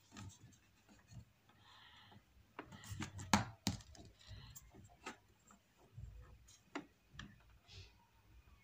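Faint clicks and taps of a syringe and plastic tube being handled against the print-head carriage of an Epson inkjet printer, with a few sharper knocks about three seconds in.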